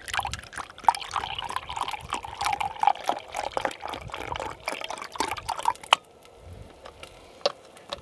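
Beef broth poured in a steady stream into a glass measuring cup, foaming as it fills. The pouring stops about six seconds in, followed by a few faint clicks.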